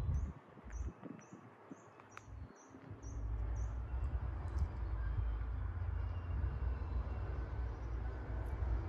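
Distant excavators' diesel engines rumbling steadily, coming in about three seconds in. Over the quieter opening, a bird repeats a short high chirp several times.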